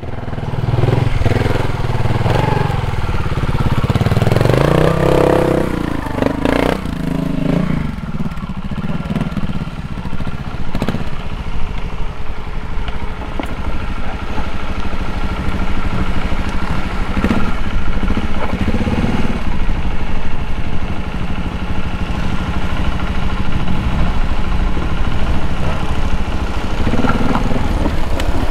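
Trials motorcycle engine blipped and revved in short bursts as the rider picks through a steep section, then running more steadily at low revs, with a few short knocks.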